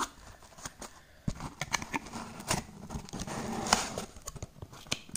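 Handling of the woofers' cardboard and foam packaging: scattered clicks, taps and rustling as the box is turned and opened, with one sharper click near the end.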